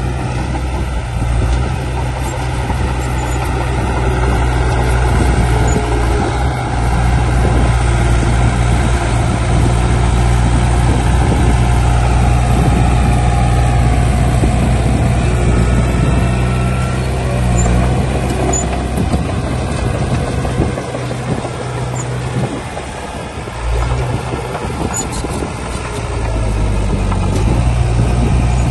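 Heavy diesel earthmoving machinery running: a steady low engine drone with mechanical clatter over it. The drone eases off briefly about three quarters of the way through, then comes back up.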